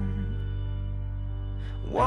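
Background song: a sustained chord over a steady bass between sung lines, with the singing coming back in just at the end.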